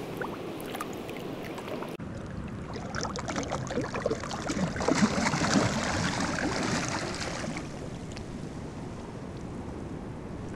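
Shallow river flowing over stones, with a burst of splashing from about three to seven seconds in as a released chinook salmon thrashes at the surface and swims off.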